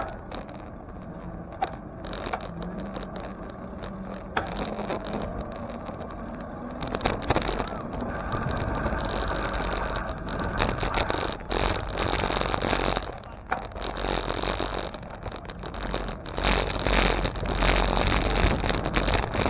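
Road noise from a moving bicycle among traffic: a steady rush of wind and passing vehicles with scattered small knocks. It grows louder in the second half, with low wind buffeting on the microphone.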